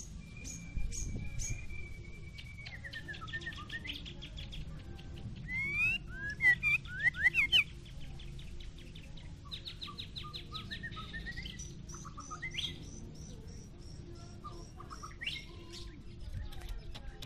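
White-rumped shama singing a varied song: a held whistle that falls away, rapid trills and repeated chips, with a burst of loud sweeping whistles about six seconds in, the loudest part, and a string of high repeated notes in the second half.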